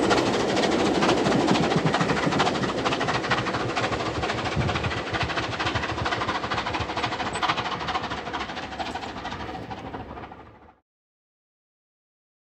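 Steam-hauled train passing beneath and rolling away along the track, its coaches rattling on the rails, the noise slowly fading. It fades out quickly near the end, leaving silence for the last second and a half.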